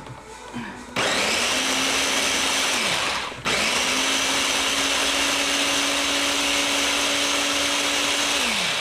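Countertop blender running on soaked almonds and water for almond milk. It runs for about two seconds, cuts out briefly, then starts again and runs for about five seconds before spinning down near the end.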